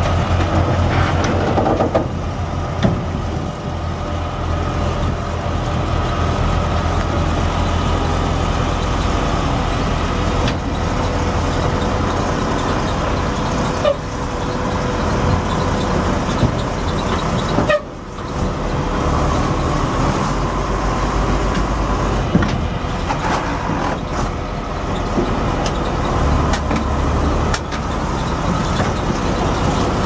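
Heavy diesel machinery running steadily: a dump truck and a wheeled spider excavator working together, with a low engine drone and a steady high whine over it. The sound briefly cuts out about two-thirds of the way through.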